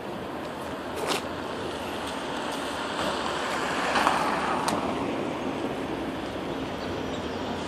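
Steady outdoor noise of wind and vehicle traffic, swelling a little about four seconds in, with a couple of faint clicks.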